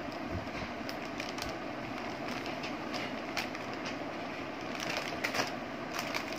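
Steady hiss of heavy rain under short, scattered crackles of a plastic potato-chip bag being handled and chips being eaten, with a denser burst of crackling about five seconds in.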